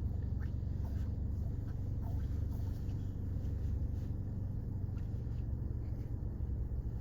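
Steady low rumble of a car driving on a slushy road, heard from inside the cabin, with a few faint ticks in the first few seconds.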